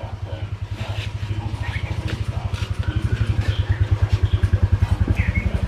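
An engine running off-camera with a steady, rapid low chug, growing louder over the first few seconds.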